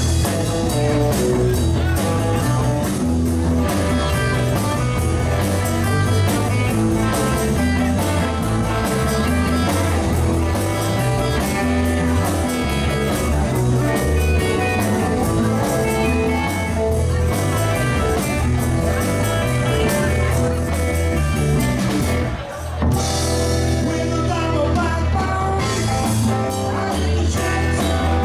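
A live rock band playing: singing over guitar and drum kit. The band drops out for a brief break about three-quarters of the way through, then comes back in.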